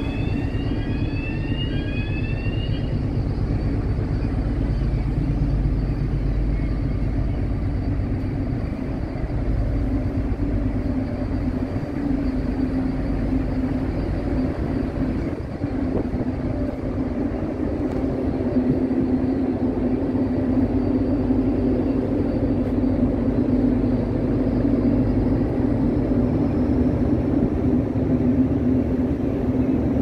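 Steady drone of a ship's machinery, engines and ventilation humming low and continuously, heard from on deck. In the first few seconds a quick run of short, high, rising chirps sounds over it.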